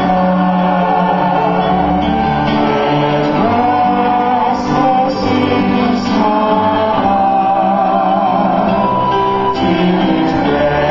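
A church hymn sung by voices with instrumental accompaniment. Sustained notes move from one to the next every second or so.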